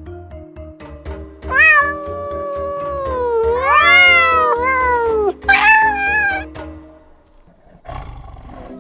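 Domestic cat meowing: a long, wavering meow that rises and falls, then a shorter, higher meow, over background music.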